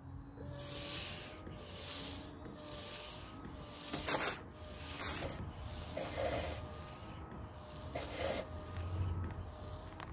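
Rear wiper of a 2015 Vauxhall Mokka running with a freshly fitted Bosch blade: a steady motor whine under repeated swishes of the blade rubbing across the wet rear glass, with louder swishes about four and five seconds in.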